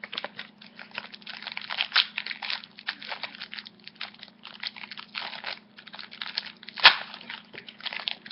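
Foil Yu-Gi-Oh booster pack wrapper crinkling and tearing as it is opened by hand, a dense run of crackles with one sharp, loud crackle about seven seconds in.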